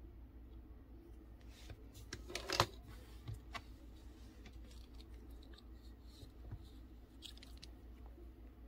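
Light clicks and rustles of small plastic RC car parts being handled, with the loudest cluster of clicks about two and a half seconds in, over a faint steady hum.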